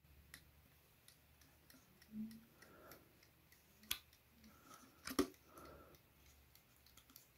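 Faint small clicks and taps of fingers handling a cheap alarm clock movement of plastic gears and steel plates, with two sharper clicks about four and five seconds in.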